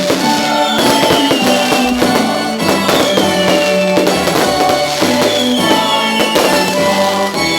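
Music with drums and held notes, with a short falling high tone repeating about every two seconds.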